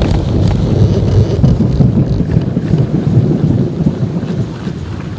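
Thunder from an approaching storm: a loud, long rolling rumble that slowly fades near the end.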